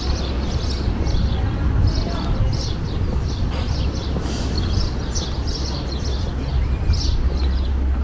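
Small birds chirping repeatedly over a steady low rumble.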